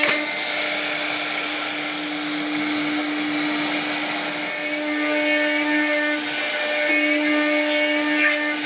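An electric power tool running steadily while cutting a decorative design into the wood of a bed, a high whine with a noisy rasp over it. Its pitch shifts slightly a couple of times.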